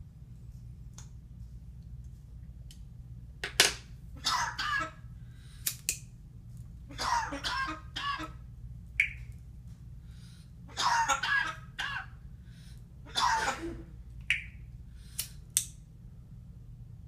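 Parrot mimicking a human cough: about five coughing fits, some of several coughs in a row. Short clicks and high peeps come between them.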